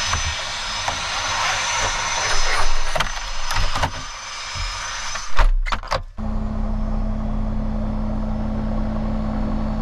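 Small single-engine propeller airplane running: first a loud rush with a thin high whine, heard through the open rear cabin door. A thump and a few knocks come about five and a half seconds in, then a steady lower engine and propeller drone with one held tone, heard inside the closed cabin.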